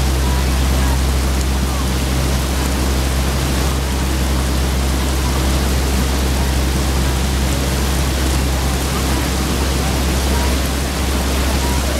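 Steady hiss of rain falling on a lake's surface, over a steady low rumble.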